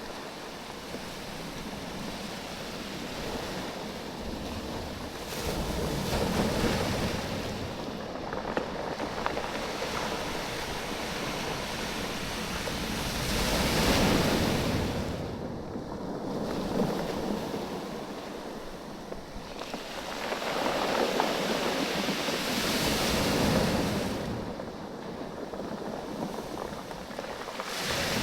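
Waves washing in and out over a beach of rounded oval stones, the stones clattering and knocking against each other as the water ebbs and flows. The surf swells and fades in several surges, with a lighter rattle of stones between them.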